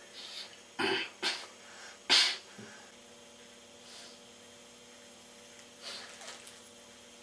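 A person sneezing three times within about a second and a half, the third sneeze the loudest, followed by a few faint breathy sounds.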